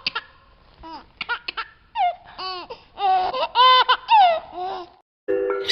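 A baby laughing and babbling in a run of short, high, squealing bursts that slide up and down in pitch. Music starts shortly before the end.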